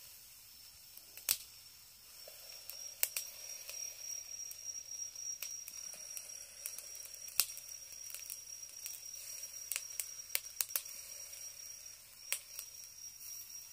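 Beef omasum grilling on a wire mesh over charcoal in a shichirin: a faint sizzle with irregular sharp pops and crackles about once a second or two.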